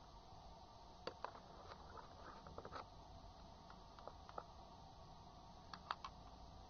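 Near silence with faint scattered clicks and soft taps, about a dozen, as a clear plastic cup of soap-and-salt slime is handled.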